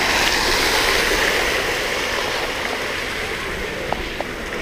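Steady rush of water falling from a splash-pool fountain column into shallow water, slowly fading, with a couple of faint ticks near the end.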